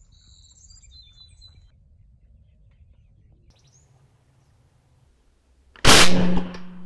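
Small birds chirping for the first second and a half. About six seconds in, a single loud shot from a .50-calibre Seneca Double Shot air rifle firing an arrow, dying away over about a second with a low ringing tone left behind.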